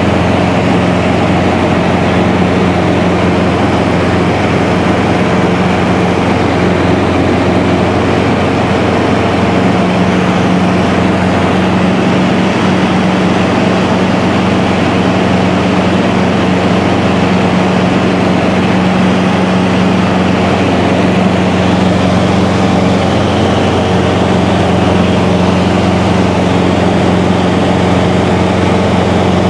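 Light aircraft's piston engine and propeller running steadily at a constant pitch, heard from inside the cabin.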